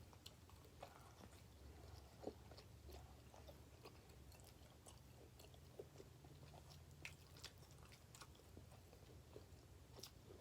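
Faint chewing of pizza: soft mouth smacks and small crunches in an irregular scatter, over a steady low hum.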